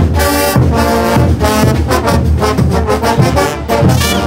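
Bolivian brass band playing a morenada at full volume: trumpets, trombones and tubas in ensemble over a heavy bass line, with regular drum strokes.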